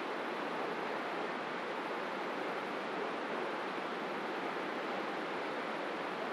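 Steady rushing outdoor noise, even and unchanging, with no distinct events in it.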